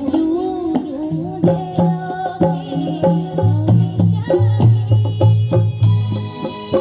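Garhwali folk music: a melodic line bends and slides for about a second, then gives way to a rhythmic instrumental passage of quick percussion strokes over a repeating bass line.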